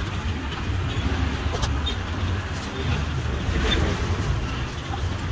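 Steady low rumble of street traffic, with a few faint light ticks and rustles over it.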